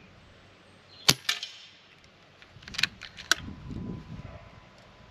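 Reximex Pretensis PCP air rifle firing one pellet about a second in, a sharp crack with a smaller crack just after it. Less than two seconds later comes a run of sharp metallic clicks as the action is cycled for the next shot.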